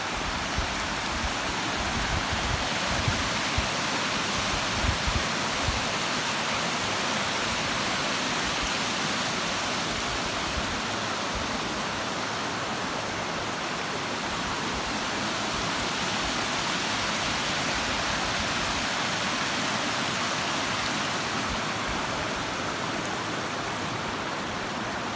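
Water spilling over a mill pond dam in good flow, a steady rushing hiss. A few low rumbles and small knocks come in the first several seconds.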